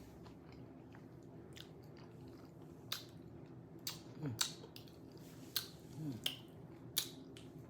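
Close-up chewing of a shrimp quesadilla, with sharp wet mouth clicks and lip smacks every second or so and two short falling 'mm' hums.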